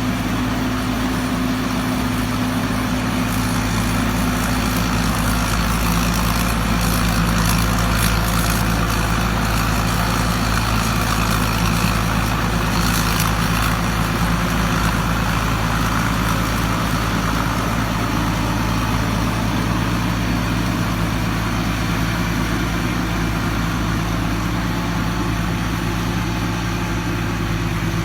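Rice combine harvester running steadily: a loud, even engine and machinery drone with a slight swell in the middle.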